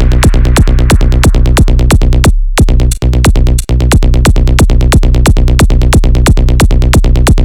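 Electronic dance track (techno/trance) with a fast, steady beat over a held bass line. The beat drops out briefly about two and a half seconds in and again near the end.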